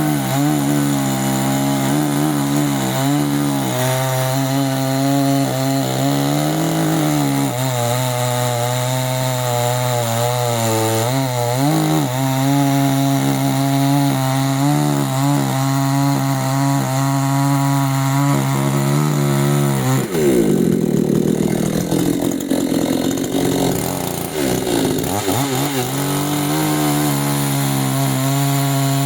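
CanFly petrol two-stroke chainsaw running at high revs, its note wavering as the throttle is worked. About twenty seconds in it cuts into wood for several seconds, the engine note breaking up under load, then it runs steadily again.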